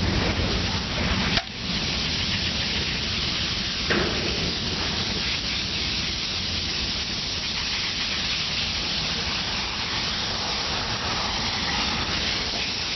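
Steady spray of water rinsing a part of the heat pump's electronic air cleaner, with a brief break about a second and a half in.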